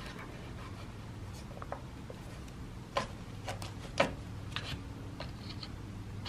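A few soft taps and scratchy rustles, the two sharpest about three and four seconds in, as a cat paws at a feather toy at a plastic baby gate, over a steady low hum.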